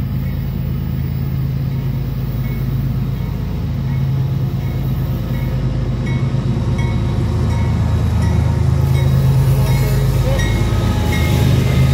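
Diesel locomotives of a slow CSX freight train passing a grade crossing, their engines droning steadily and growing louder as the units go by, while the crossing bell rings about twice a second.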